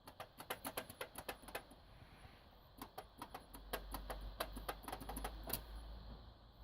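Drive trays of a Cooler Master CM 690 III PC case rattling in their guides: two runs of quick, uneven clicks, with a low hum coming in about halfway through. The loose trays amplify the hard drive noise.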